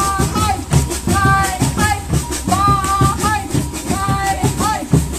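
Band playing: a drum beat with a shaker rattling over it and a melody of held notes.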